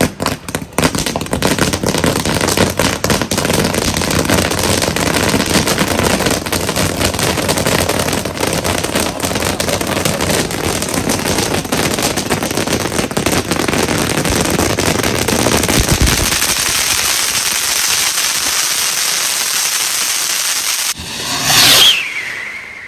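Ground firework fountain spraying sparks, with dense continuous crackling for about twenty seconds. Near the end comes a louder burst with a short falling whistle, then it dies away.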